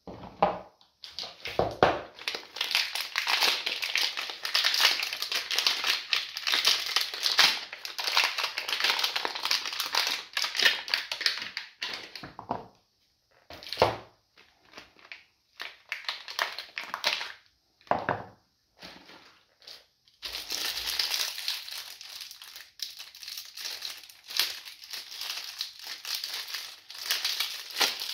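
Clear plastic wrapping crinkling as bars of soap are unwrapped and handled, in two long stretches of dense crackling with a sparser stretch of scattered rustles in the middle.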